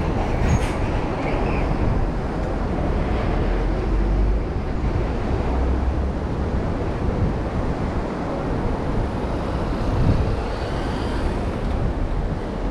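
Steady street traffic: cars driving past on an avenue, a continuous noise with a low rumble.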